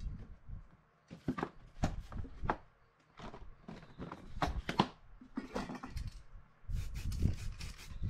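Several short hissing bursts from an aerosol spray-paint can sprayed through a stencil, along with rustling and low handling noise as the plastic stencil is moved over the board.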